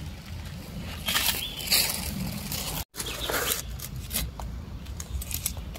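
Rustling and crunching of leaves and undergrowth, with a steady low rumble underneath. The sound cuts out abruptly for a moment about halfway through.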